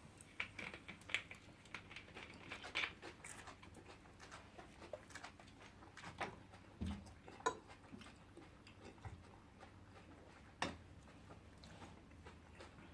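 Eating at the table: quiet chewing with scattered, irregular clicks and taps of cutlery and dishes, the busiest in the first few seconds and one sharper clack near the end.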